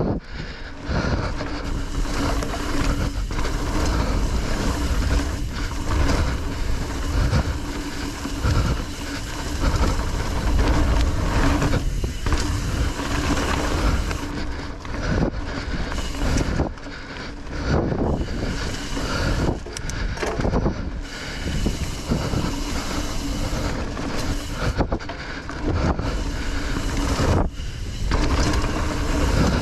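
Mountain bike being ridden over rough singletrack: the tyres roll over dirt and roots, and the bike knocks and rattles irregularly over the bumps.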